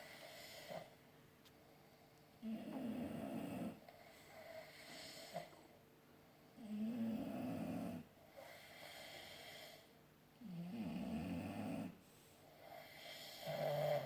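Snoring in a slow, regular rhythm: a louder snore about every four seconds, with softer breaths or snores between them.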